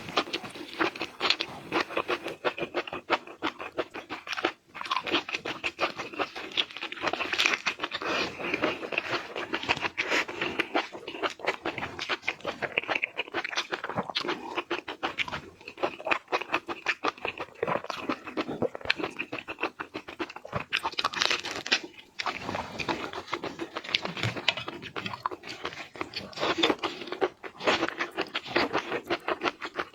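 A person chewing and biting crunchy seafood close to the microphone: a dense, continuous run of crackling crunches.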